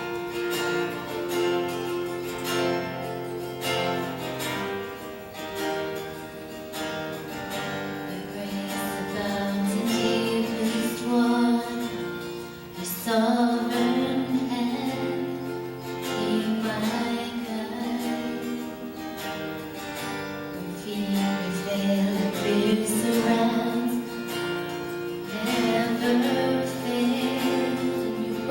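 Acoustic guitar strummed as accompaniment to a slow worship song sung by a man and a woman. The voices come in strongly about ten seconds in.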